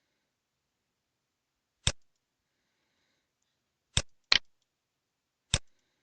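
Four sharp computer mouse clicks, two of them close together, with silence in between.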